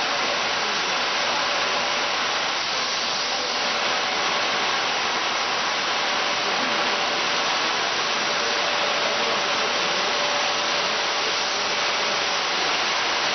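A CNC woodworking machine for barrel staves running in automatic mode: a steady, even machine noise with a faint constant hum and no separate cuts or knocks.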